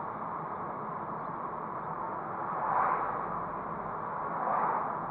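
Steady road and engine noise of a car driving slowly, heard from inside the cabin through a dash camera's microphone. It swells briefly twice, about three and four and a half seconds in, the second time as an oncoming car passes.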